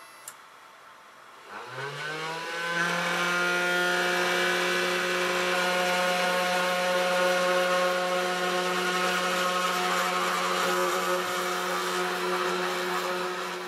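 CNC router spindle motor spinning up about a second and a half in, its whine rising in pitch, then running at a steady high whine as the end mill moves over the walnut workpiece.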